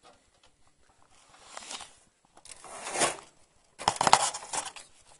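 Handling noise: rustling and scraping in three bursts, the loudest about four seconds in.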